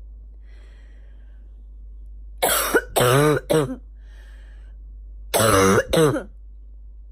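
Barking cough in two fits: a breath drawn in, three coughs in quick succession, another breath in, then two more coughs.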